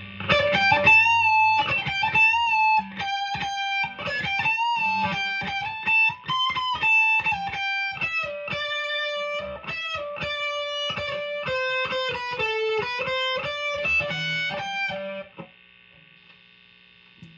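PRS S2 Standard 24 electric guitar on its bridge pickup split to single coil, played through a Marshall amp: a single-note lead line with bends and vibrato. The playing stops about fifteen seconds in, leaving the steady hum of the single-coil pickup.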